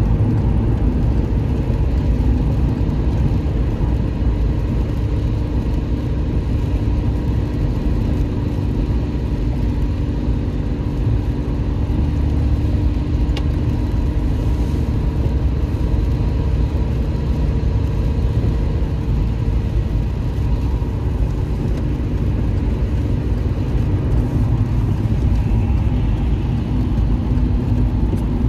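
Car driving at steady highway speed, heard from inside the car: a constant low road and tyre rumble with a faint engine hum.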